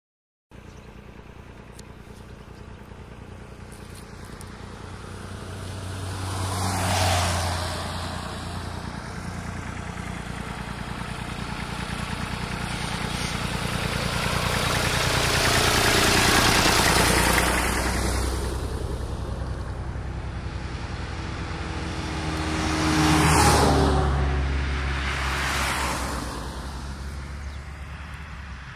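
Traffic passing on a rural road. A small red tractor towing a trailer comes by slowly, and its engine noise swells and fades, loudest around the middle. Faster vehicles rush past about seven seconds in and again around twenty-three seconds, over a steady low engine hum.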